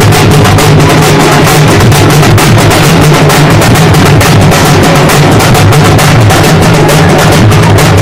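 Halgi frame drum beaten loudly in a fast, unbroken run of strokes.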